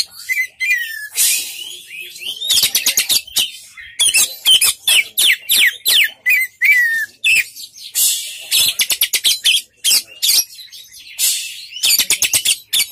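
Oriental magpie-robin singing a loud, varied song of rapid rattling note trains, quick sweeping notes and slurred whistles, delivered in phrases with short breaks between them.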